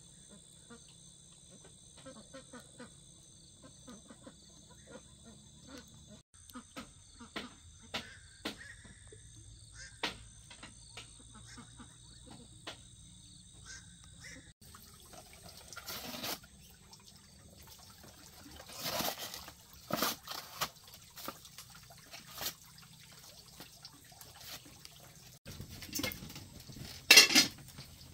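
Lakeside night ambience: water trickling and lapping, with a steady high insect trill through the first half. Scattered small knocks and clicks run throughout, and several louder sharp sounds come in the second half, the loudest near the end.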